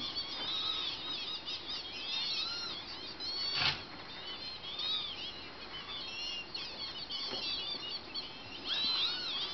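Many small birds chirping and twittering, short high calls overlapping one another without pause, with one brief sharp noise about a third of the way through.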